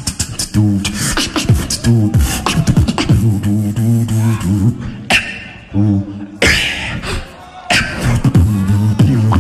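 Solo beatboxing through a microphone and PA: a deep pitched bass line in a repeating rhythm, cut with sharp kick and snare sounds, with two short breaks past the middle.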